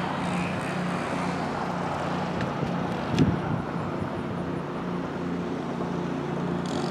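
A steady low engine hum under an even wash of outdoor noise, with a brief low knock about three seconds in.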